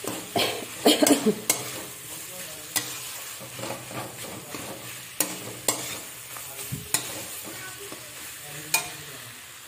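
Aloo sabzi frying and sizzling in a metal kadhai while a metal spatula stirs it. The spatula makes sharp scraping clicks against the pan, several close together in the first second and a half and then every second or two.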